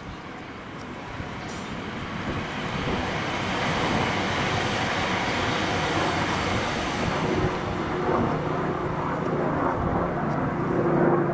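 Helicopter flying low overhead, its engine and rotor noise growing louder over the first few seconds and then holding steady, with a low droning tone coming in during the second half.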